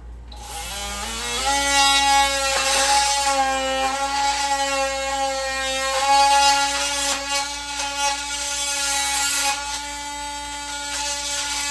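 A small electric power tool's motor starts about half a second in, winds up in pitch over about a second, then runs at a steady whine, with a few clicks over it.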